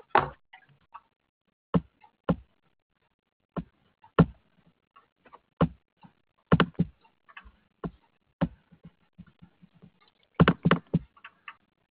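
About a dozen sharp, irregular computer keyboard and mouse clicks, spread out, with a quick cluster near the end, as someone tries to advance a slide show. They are heard through a narrow cell-phone audio line.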